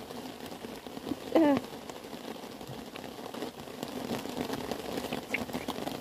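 Bottle lamb sucking milk from a feeding-bottle teat, a steady wet slurping crackle, with one short pitched call about a second and a half in.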